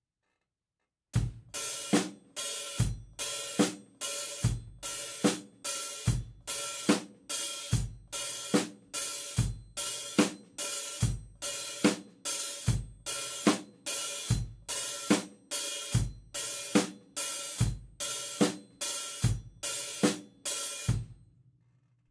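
Acoustic drum kit playing a steady beat with bass drum and snare. The hi-hat is opened on every upbeat, giving a sizzling bark, and pedalled shut again on each following downbeat: the open-hi-hat 'bark' on all the upbeats. It starts about a second in and stops about a second before the end.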